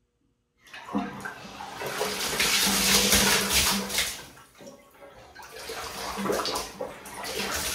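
Water gushing under mains pressure out of the open valve bodies of a Moen deck-mounted Roman tub filler, its cartridges removed, and splashing over the tub deck as the supply lines are flushed. It starts about a second in, eases off around the middle and surges again near the end.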